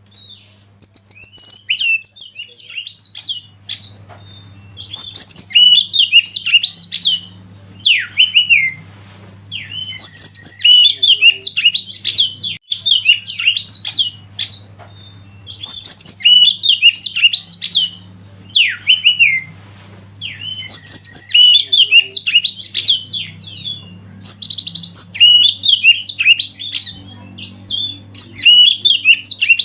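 A songbird singing loud, varied phrases of whistles and chirps, in bursts of a few seconds with short pauses between them, over a steady low hum.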